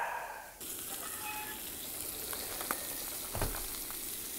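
Food sizzling in hot bacon grease and butter in a pan, a steady hiss that starts abruptly under a second in. A few light clicks and a dull knock sound about three seconds in.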